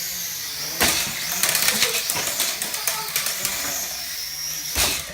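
A radio-controlled car hits the pavement with a sharp bang about a second in, then clatters and ticks rapidly as it tumbles, with a steady high electric-motor whine and another thump near the end.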